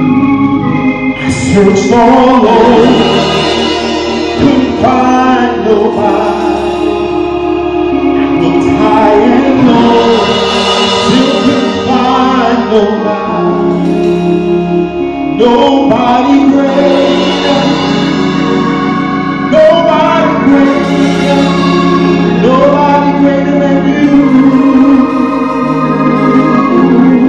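Gospel music: singing over instrumental accompaniment with sustained chords and steady bass notes.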